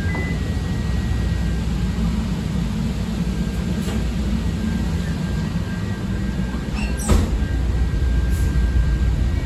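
Interior of a CTA 5000-series rapid-transit railcar in motion: a steady low rumble of the train running on the rails, with a faint steady high whine over it. One sharp clack about seven seconds in.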